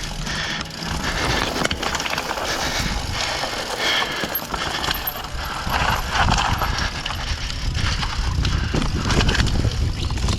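Mountain bike riding down a rocky section of trail: tyres rolling over rock with a continuous clatter of irregular knocks and rattles from the bike.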